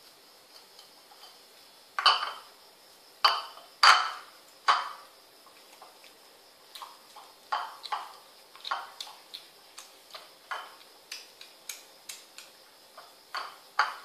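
Kittens eating dry cat food from a ceramic bowl on a tile floor: irregular sharp clicks of kibble being crunched and knocking against the bowl. A few loud clicks come about two to five seconds in, then a quicker run of softer ones.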